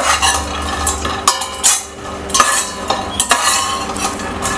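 Steel spoon stirring chopped almonds around a dry stainless-steel pan, with irregular scrapes and clinks of metal on metal and nuts sliding over the pan as they are dry-roasted.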